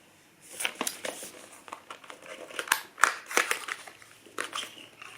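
Packaging being handled: crinkling and rustling with irregular clicks and taps, starting about half a second in, as items are taken out of a small box.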